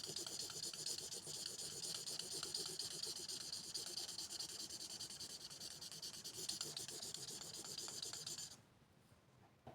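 Fast, steady back-and-forth scratching strokes on paper, cutting off abruptly about eight and a half seconds in.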